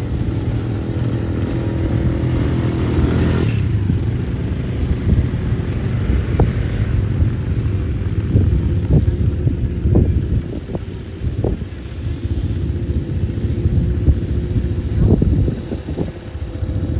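Quad bike (ATV) engines running on sand. A nearby engine holds a steady note for about the first three and a half seconds, then stops sharply, leaving a low, uneven rumble of several engines.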